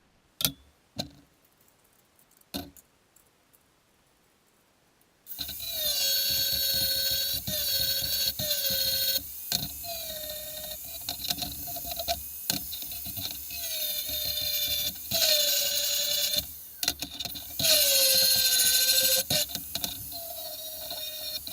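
A few light knocks, then about five seconds in a power cutting tool, most likely an angle grinder with a cut-off wheel, starts up and cuts steel in repeated passes. Its whine sags in pitch each time the wheel is pushed into the cut and climbs back as it eases off, with a few short pauses. It is cutting a notch out of the shelf piece in place of miter cuts.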